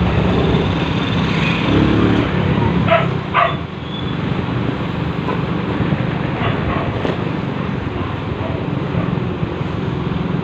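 Steady road and engine noise of a vehicle moving through city traffic. About three seconds in come two short, sharp pitched sounds in quick succession.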